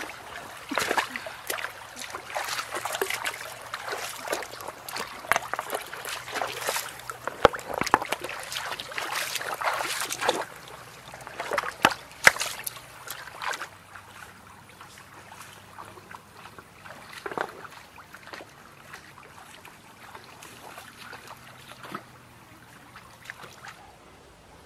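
Bare feet splashing and sloshing through a shallow, rocky stream, with hands slapping the water, over the trickle of the current. The splashes come thick and fast for the first half, then thin out to a few scattered ones.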